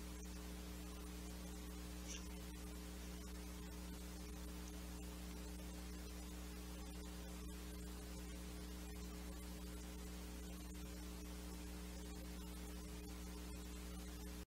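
Faint, steady mains hum with a low background hiss.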